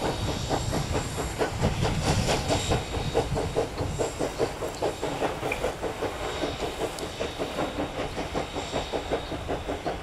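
Queensland Railways C17 class 4-8-0 steam locomotive pulling its train away, its exhaust beating in a fast, even rhythm over a steady hiss of steam, with the carriages running along the track.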